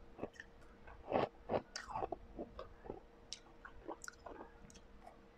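Someone chewing a mouthful of refrozen blended ice: irregular crunches, loudest a little over a second in, then smaller and fewer.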